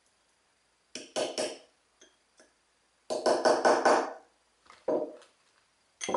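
Quick runs of sharp taps and knocks from metal gearbox parts being worked as a retaining ring is fitted on the input shaft: a few strokes about a second in, a longer run of rapid taps around three seconds in, then single knocks.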